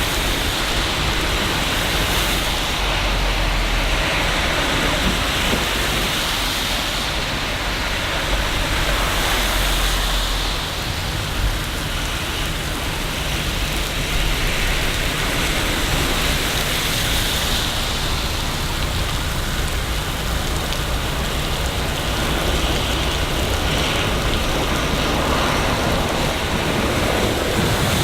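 Steady rain falling in a city, a constant hiss of drops. A low rumble underneath fades out about ten seconds in.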